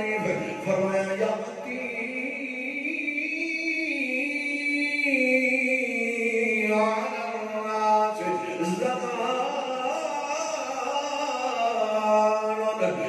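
A man's voice chanting long, drawn-out melodic phrases into a microphone, the notes held and slowly sliding in pitch.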